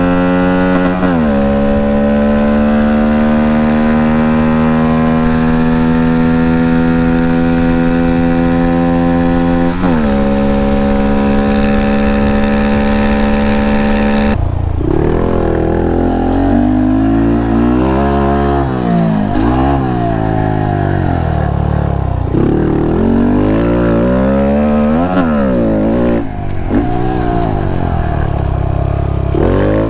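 Honda Monkey's 125 cc single-cylinder engine through a Termignoni full stainless exhaust, ridden under load: revs climb steadily and drop sharply at upshifts about a second in and about ten seconds in. About halfway the sound changes abruptly to revs rising and falling repeatedly with the throttle.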